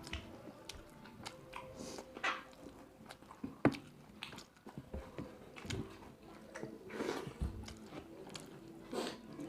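Close-up chewing and biting of food, with small wet clicks and light crunches from the mouth and a sharper click about four seconds in.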